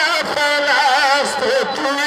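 A man's solo voice singing a religious chant through a PA, drawn out in long notes with wavering, ornamented turns of pitch.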